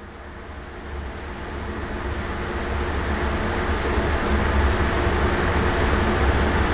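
Steady low hum and rushing air of ventilation machinery in an indoor shooting range. It swells over the first few seconds, then holds steady.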